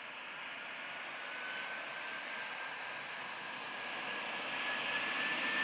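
Four-engined Airbus A340 with CFM56 turbofans on final approach at approach power, its jet noise growing steadily louder as it nears. A thin engine whine rides on top and rises slightly in pitch.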